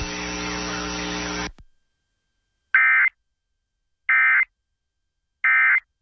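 Emergency Alert System end-of-message data bursts: three short, identical digital warbles about 1.4 s apart, sent right after a spoken alert. They come after a steady hum and hiss of broadcast audio that cuts off about 1.5 s in.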